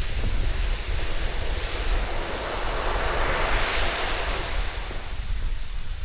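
Surf on a sand beach: a wave breaks and washes up the sand, swelling to its loudest about halfway through and then fading. Wind buffets the microphone throughout.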